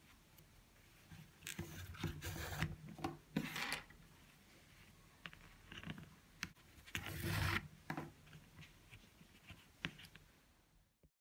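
Thick cotton piping cord being wrapped and pulled around the warp threads of a cardboard loom for a soumak weave. It makes intermittent rubbing and rustling as the cord and fingers drag over the card and warp, with a few light clicks and two louder stretches of scraping. It stops abruptly near the end.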